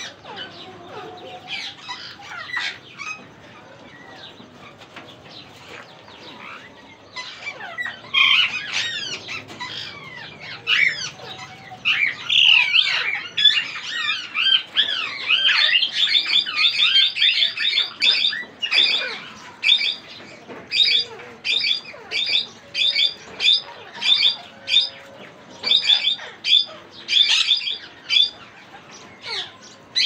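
Several ringneck parrots calling: a jumble of high, gliding screeches that grows busy about a third of the way in, then turns into a quick run of repeated calls, roughly one and a half a second.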